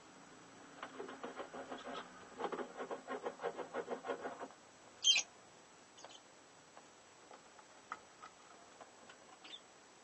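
Fischer's lovebirds calling inside the nest box: a quick run of pulsed calls, about seven a second, for three to four seconds, then one short, sharp high chirp about five seconds in, followed by a few faint ticks and scratches in the nesting material.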